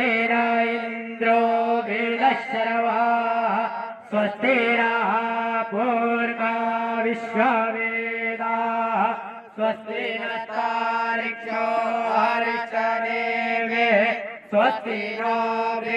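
A man's voice chanting Hindu mantras, held mostly on one steady pitch with short rising and falling turns.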